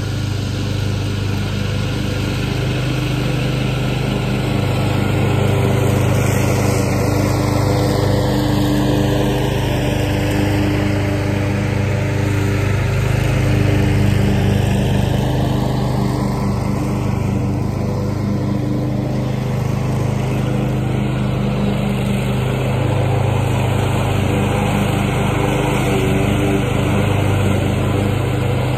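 Commercial walk-behind lawn mower engine running steadily while mowing grass. Its tone shifts slowly as the mower moves away across the lawn and then comes back close.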